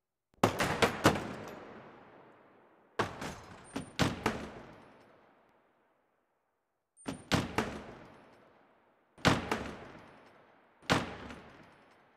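Electronic sound performance played through loudspeakers: clusters of three or four sharp, gunshot-like cracks that ring out and die away in a reverberant hall, five clusters a few seconds apart.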